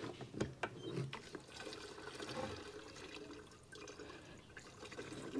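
Petrol poured from a plastic jerry can into a lawn mower's fuel tank: a faint trickle of liquid, with a few light knocks in the first second.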